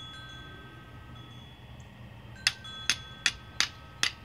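Flint struck with the smooth, toothless part of a steel file, five sharp strikes in quick succession starting about two and a half seconds in, each followed by a short metallic ring. This is flint-and-steel fire lighting, throwing sparks onto charcloth.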